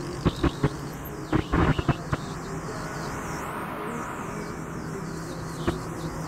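Steady road and engine noise heard inside a moving car at highway speed. A handful of short, sharp clicks or taps come in the first two seconds.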